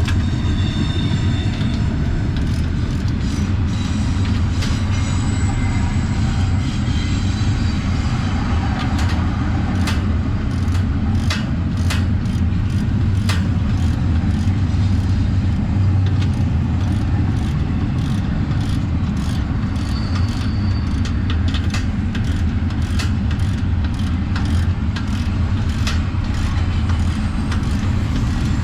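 A train passing: a steady low rumble with many short clicks of wheels over rail joints, and a faint high squeal now and then.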